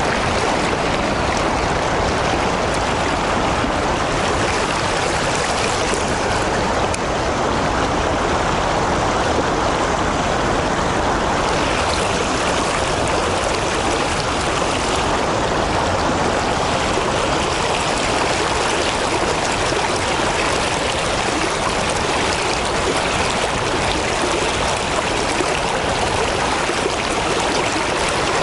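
Steady rush of river water flowing below a lock and dam, an even, unbroken wash of sound.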